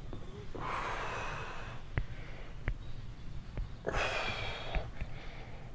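A person breathing hard while straining against resistance during a shoulder stretch: two long, noisy breaths about a second each, with a few small clicks between them.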